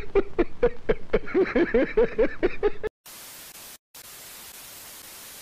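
A man laughing hard in quick, rhythmic bursts, cut off abruptly about three seconds in. Steady TV-static hiss follows, with a brief break.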